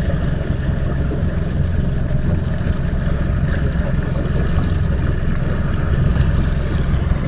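Bass boat under way: the outboard motor runs with a steady low rumble, mixed with wind and water noise.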